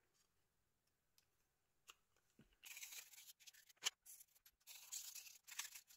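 Faint scratchy rustling and scraping of small mobile-phone parts being handled, starting about two and a half seconds in, with one sharp click near the four-second mark.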